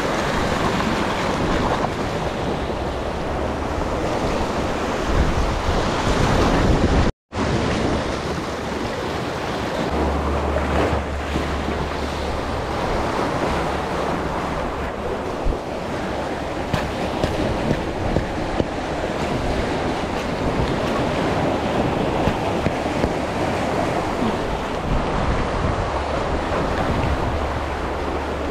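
Wind buffeting the microphone over the steady wash of sea water, cutting out to silence for a moment about seven seconds in.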